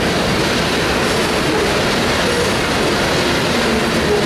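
Covered hopper cars of a BNSF freight train rolling past: a steady rumble of steel wheels on the rails.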